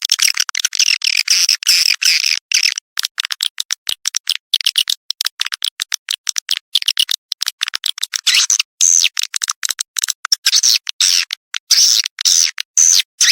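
Swiftlets twittering: a dense stream of rapid, high chirps and short falling trills, the 'birahi' courtship call used as a lure for swiftlet houses.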